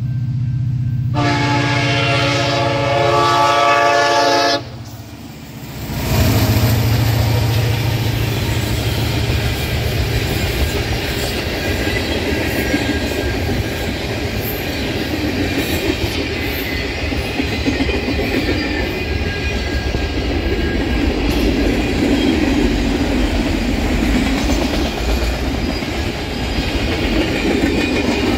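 Union Pacific freight train led by an SD70-series diesel locomotive: engine drone as it approaches, then one long horn blast about a second in, held for about three and a half seconds and cut off sharply. From about six seconds the train rolls past loudly, its wheels clattering over the rail joints.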